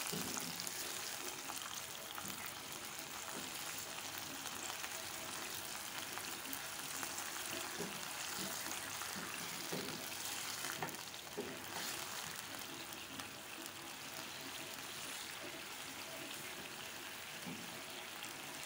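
Shrimp, garlic, shallots and chilli sizzling in oil with a little added water in a nonstick wok: a steady hiss, with a few soft spatula strokes in the middle.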